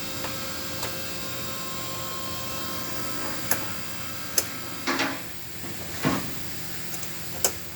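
Steady background hum broken by a handful of sharp clicks and knocks, unevenly spaced, the two loudest short and crisp about halfway through and near the end.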